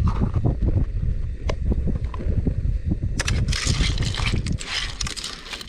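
Wind buffeting the microphone, then from about three seconds in a spoon stirring whole siri crabs in a cooking pot, a rough scraping clatter of shells against the pot.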